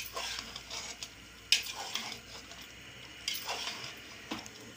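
Metal ladle stirring mutton, onions and spices in an aluminium pressure cooker, with four sharp scrapes against the pot over a faint sizzle from the hot pan.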